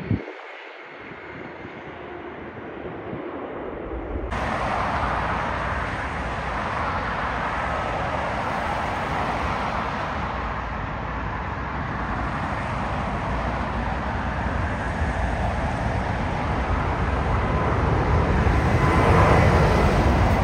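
Jet engines of a Boeing 787 airliner at take-off thrust as it climbs out: a steady rushing noise that grows louder and is loudest near the end as the aircraft passes overhead. Before it, after a brief click, there are a few seconds of fainter jet noise from an airliner on the runway.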